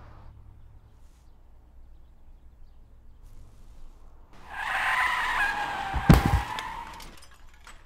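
Vehicle tires squealing in a skid, the squeal sliding downward in pitch, with a heavy thump about six seconds in.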